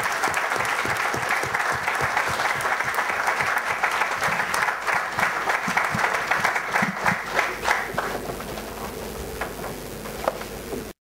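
Audience applauding, a dense patter of many hands clapping that thins out after about eight seconds to a few scattered claps, then cuts off suddenly.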